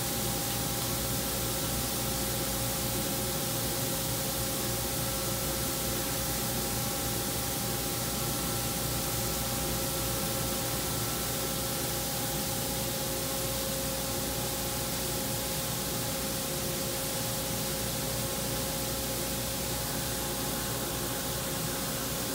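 Steady hiss with a constant hum of several steady tones, from the exhaust hood drawing smoke off a gas charbroiler grilling hamburger patties.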